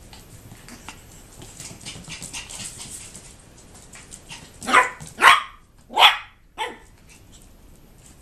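A small dog barks four times in quick succession about halfway through, the last bark shorter and weaker, after a few seconds of light scuffling and clicking as the dogs play.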